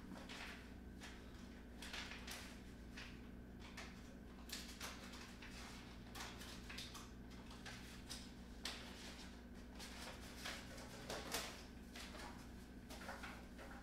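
Faint rustling and scattered light clicks of loose sheet music being turned and shuffled on a music stand, over a steady low hum.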